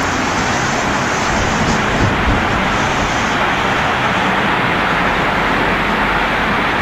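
Violent storm of strong wind and heavy rain: a loud, steady rush of noise, with a couple of slightly louder gusts about two seconds in.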